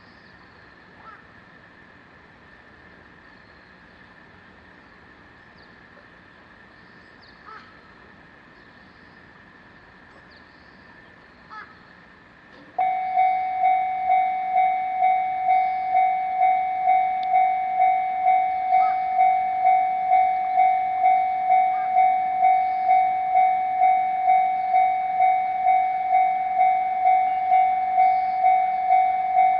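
Japanese railway level-crossing warning bell, which starts suddenly about halfway through and then rings steadily at about two strikes a second, signalling an approaching train; it is the alarm of a third-class crossing, which has warning signals but no barrier gates. Before it starts there is only faint background with a few light clicks.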